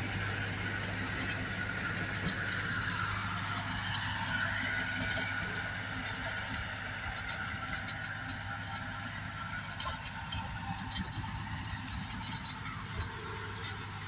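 SAME orchard tractor's diesel engine running steadily with a low hum as it works the soil with a rear rotary tiller. Light scattered clicks come in over the second half.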